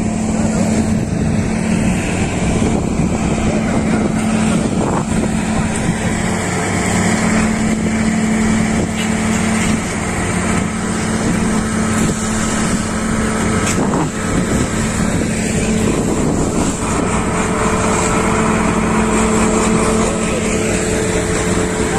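Farm tractor engine running at a steady speed, a continuous loud drone.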